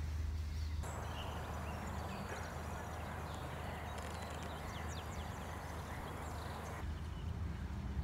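Faint outdoor ambience: a steady hiss with scattered faint, short, high bird chirps. A low rumble sits under the first second and returns near the end.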